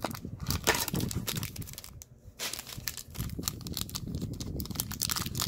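A cardboard hanger box of 2020 Bowman Platinum cards being opened and its foil card packs handled, crinkling irregularly.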